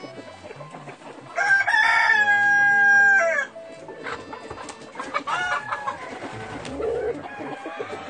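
A rooster crows once, a loud call of about two seconds held on one pitch and dropping off at the end, with hens clucking around it.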